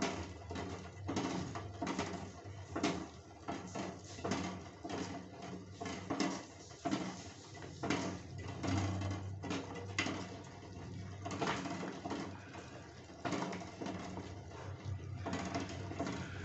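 Water at a rolling boil bubbling in a stainless steel pot, with eggs knocking irregularly against the pot.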